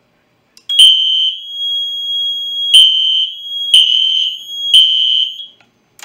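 Fire alarm horn-strobe set off by a pulled manual pull station on a Fire-Lite MS-4424B panel, starting about a second in with a loud, steady high-pitched tone and a sharp click about once a second. It cuts off shortly before the end as the alarm is silenced at the panel.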